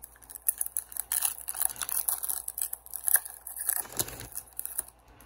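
A foil pack of 2019-20 Upper Deck SP hockey cards being torn open and its wrapper crinkled, in a dense run of crackles and rips.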